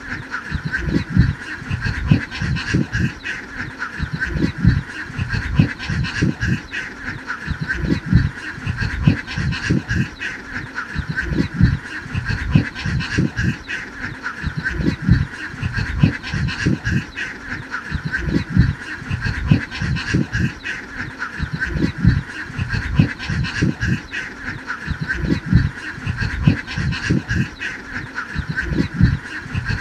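A large flock of domestic ducks quacking nonstop, many calls overlapping into one dense chorus.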